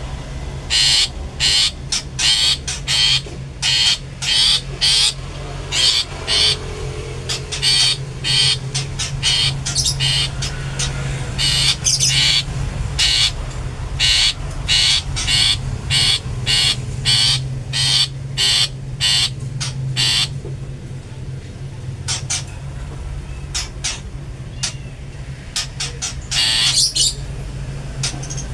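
Long-tailed shrike (cendet) giving rapid series of short, harsh squawking calls, several a second. It pauses for several seconds about two-thirds of the way through and starts calling again near the end. This is the 'toet toet' call kept as a lure to provoke other shrikes.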